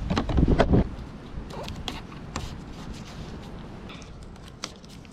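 Masking tape being pulled off the roll and pressed down around a car headlight, heard as scattered faint clicks, crackles and rustles. A short low rumble comes in the first second.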